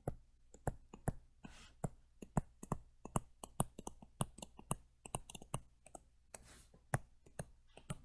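Faint, irregular sharp clicks and taps, about three a second, from handwriting words on a digital screen, with a brief scratchy hiss once or twice.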